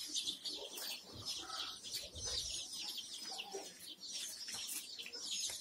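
A crowd of young Kadaknath and desi chicks peeping all at once: many short, high cheeps, each falling in pitch, overlapping without a break, with a few lower clucks mixed in.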